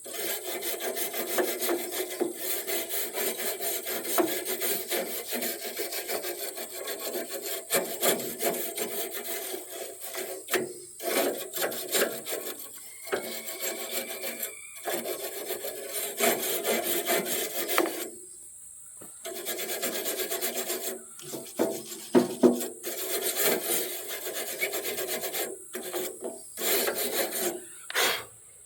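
Rust being scrubbed off a sawmill's blade by hand: rapid back-and-forth rubbing strokes, broken by short pauses several times.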